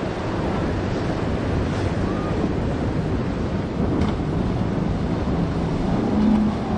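Ocean waves breaking in a rough inlet with wind buffeting the microphone, and the low steady drone of a boat engine underneath that swells briefly near the end.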